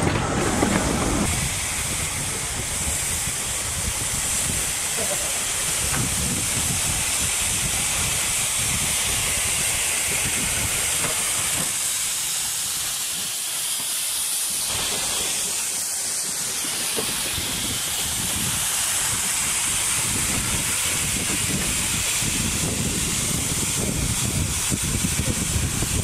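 Narrow-gauge steam locomotive letting off steam: a steady hiss.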